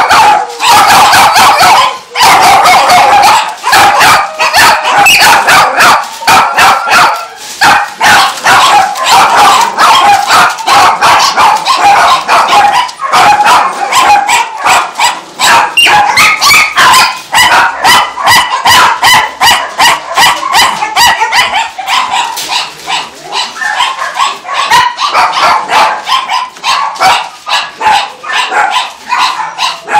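Many dogs in shelter kennel crates barking and yipping at once, a loud, unbroken din of overlapping barks.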